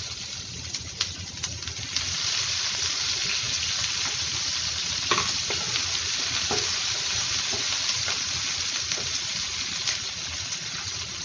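Onions sizzling steadily in hot oil in a pan, with a few knocks from stirring.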